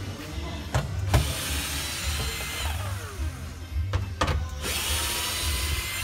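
A power drill whirring in two bursts, its motor spinning up and winding down, with a few sharp clicks, over background music with a steady beat.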